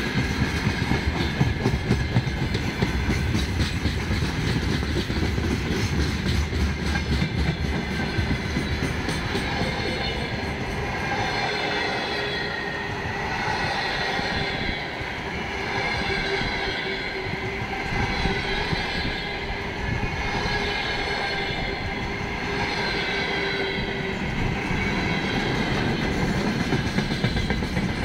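Freight wagons (gondolas, flatcars and boxcars) rolling past close by: a continuous rumble and clatter of wheels over the rails. From about a third of the way in, a thin ringing tone rides over the clatter, swelling and fading every couple of seconds.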